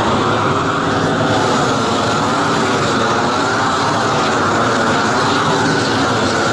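Propane roofing torch burning with a loud, steady rush as its flame heats rubber-modified bitumen torch-down membrane to melt it onto the roof.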